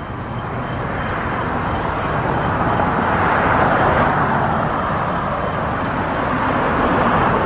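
City street traffic: cars passing on the road, the rush of tyres and engines swelling about three to four seconds in and again near the end.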